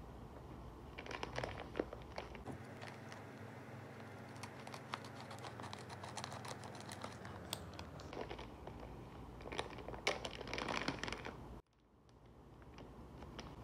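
Clear plastic packaging crinkling and crackling in several bursts as it is handled and cut open with scissors. The sound cuts off abruptly about two seconds before the end.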